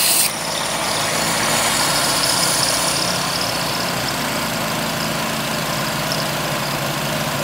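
Belt sander's sanding hiss cuts off about a third of a second in as the wood comes off the belt. After that, the All-Power 2000 W inverter generator's small engine runs steadily under the sander's load, with the 1/3 hp belt sander's motor and belt running free.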